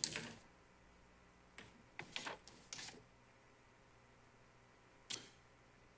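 Quiet room tone with a few faint, brief clicks between about one and a half and three seconds in, and one more near the end.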